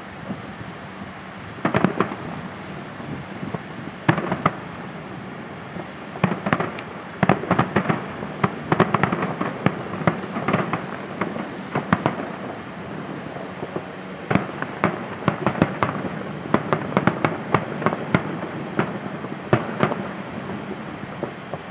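Display fireworks shells bursting in a finale barrage: a few single bangs at first, then dense volleys of sharp bangs and crackles from about six seconds in.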